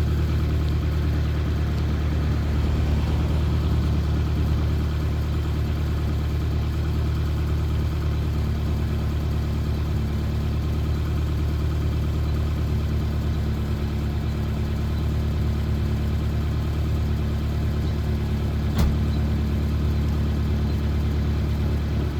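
A 2000 Honda CR-V's four-cylinder engine idling steadily, with a single sharp click about three-quarters of the way through.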